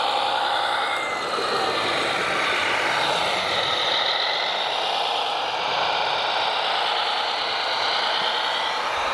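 Steady whine of RC construction machines' electric motors running under load, several pitches drifting slowly up and down as the motors speed up and slow.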